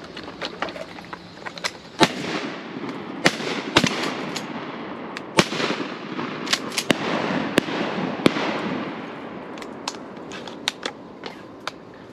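Shotgun fire from duck hunters: a quick scattering of sharp shots, some loud and others fainter, each trailing off in a rolling echo, thickest in the middle of the stretch.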